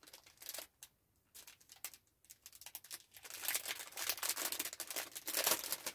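Small paper-and-plastic packaging crinkling and rustling in the hands as it is handled and opened. It is sparse at first and becomes continuous about three seconds in.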